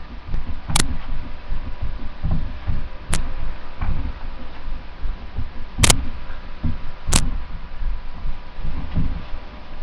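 Irregular dull thuds of feet landing and stomping on a carpeted floor during jumpstyle dancing, several with a sharp click on top, over a faint steady hum.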